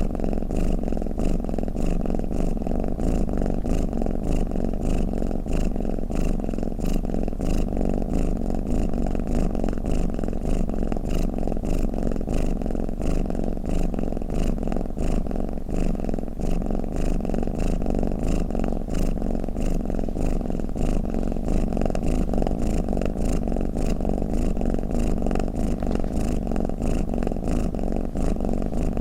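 Domestic cat purring, a continuous low purr with no breaks.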